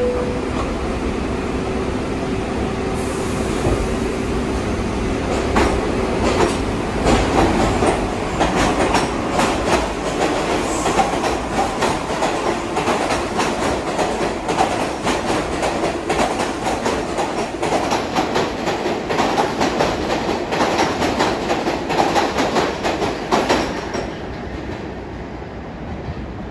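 R62A subway train pulling out of an underground station. It hums at first, then its wheels click rhythmically over the rail joints as the cars gather speed past the platform, and the sound fades near the end as the last car leaves.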